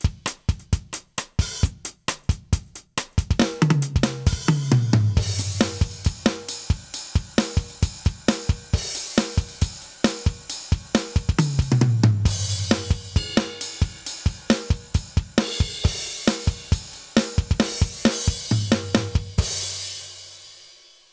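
Aroma TDX-25 electronic drum kit playing its 'K16 Latin Jazz' preset: a steady groove of kick, snare, hi-hat and cymbal hits broken by tom fills that step down in pitch. The playing stops near the end and the last hits ring out and fade.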